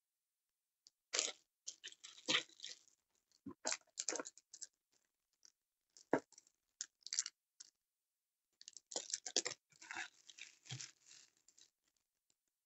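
Plastic wrapping and bubble wrap crinkling and rustling as items are handled in a cardboard box, in irregular bursts of crackles with a few light knocks, starting about a second in.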